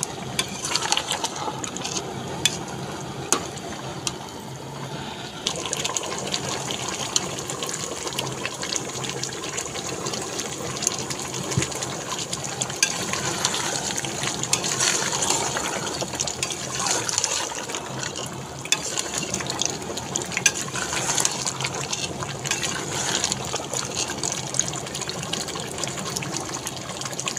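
Mutton and potato curry bubbling in an aluminium pot on a gas burner while a metal spoon stirs it, scraping and knocking against the pot's side again and again.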